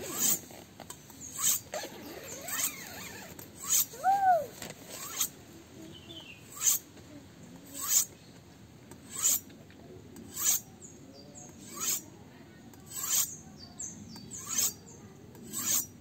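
A 31 cm Victorinox bullnose butcher's knife drawn along a sharpening steel, blade scraping on the rod in short, even strokes about once every second and a bit, about a dozen in all. This is the edge being sharpened again on the steel.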